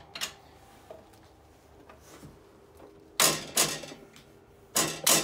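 Handling noise from work inside a cardboard shipping box around the snowblower's parts. A light click comes near the start, then two pairs of short, loud scraping rustles, about three seconds in and again near the end.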